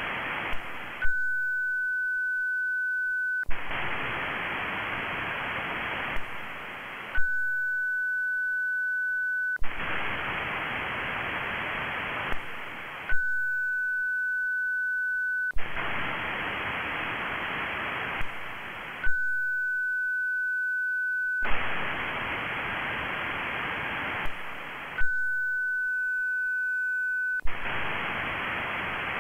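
Moonbounce echo-test cycle from a VHF amateur radio station running WSJT echo mode. A steady high-pitched test tone for about two and a half seconds alternates with about two and a half seconds of radio receiver hiss while the station listens for its own echo off the Moon. Each switch is marked by a click, and the cycle repeats every six seconds, about five times.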